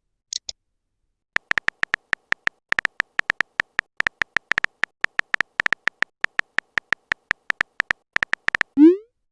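Phone on-screen keyboard typing sound effect: rapid, irregular short clicks, several a second, after a brief pair of high pops just after the start. Near the end a short rising swoop, like a message-sent sound.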